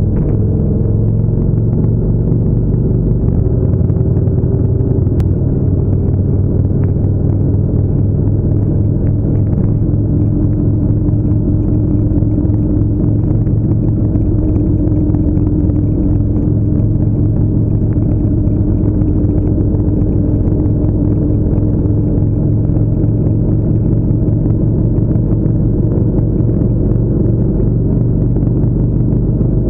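Harley-Davidson V-twin motorcycle engine running steadily at highway cruising speed, heard close up from a camera mounted on the bike as a loud, even low drone.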